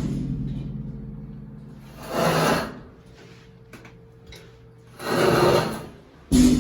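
Hitachi NEW PREED elevator car running, with a steady low hum, two loud scraping, rushing noises about three seconds apart and a sudden heavy thump near the end. These are the abnormal noises this elevator is known for.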